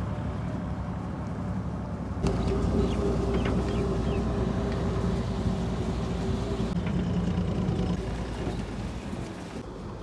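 Combine harvester running with a steady engine drone and a held hum. The sound changes abruptly about two seconds in, and a few short bird chirps come a second or two later.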